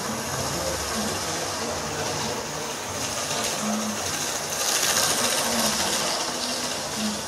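Model train running along its track: a steady whirring, rumbling run of motor and wheels on the rails, getting louder about five seconds in as the lit coach passes close.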